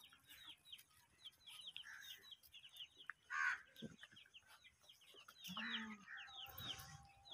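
Faint chickens calling: a steady run of short, high, falling peeps, with a louder call about three and a half seconds in and another about six seconds in.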